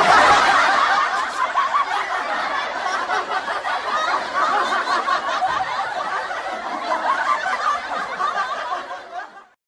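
Canned audience laughter, a sitcom-style laugh track of many people laughing together. It starts suddenly at full strength and fades out near the end.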